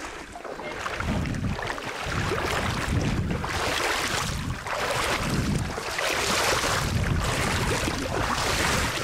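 A person wading through a shallow river, the water splashing and sloshing in surges about once a second with each stride, with wind rumbling on the microphone.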